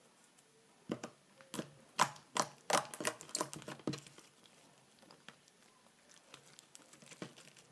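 Slime being squeezed and poked by hand, making a quick run of sharp clicks and pops for a few seconds and then fainter scattered clicks.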